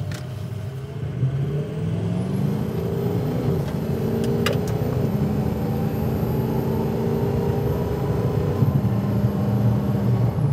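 2005 Ford Excursion's 6.0-litre Power Stroke turbo-diesel V8 pulling at highway speed, heard from inside the cab over tyre and road rumble. The engine note climbs in pitch over the first few seconds as it accelerates, then holds steady, with a thin high whine rising in about two seconds in.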